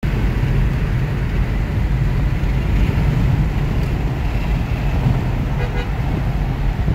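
Dodge Charger Hellcat's supercharged 6.2-litre Hemi V8 rumbling steadily with a deep, low exhaust note as it cruises alongside, heard from inside a neighbouring car, mixed with road noise. Its catalytic converters have been deleted.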